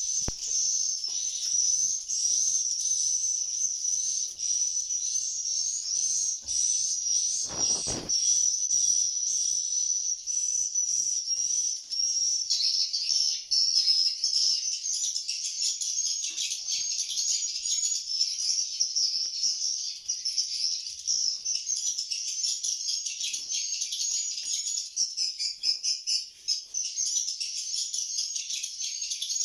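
Swiftlets twittering: a dense, continuous high-pitched chirping, with one brief low thump about eight seconds in.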